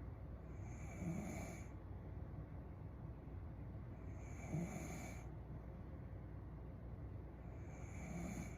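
A sleeping woman snoring, three snores about three and a half seconds apart, the last near the end.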